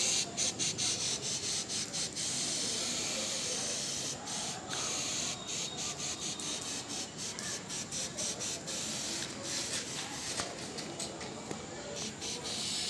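Hand-held plastic trigger spray bottle pumped over and over, each squeeze a short hiss of mist, broken by quick gaps between pulls.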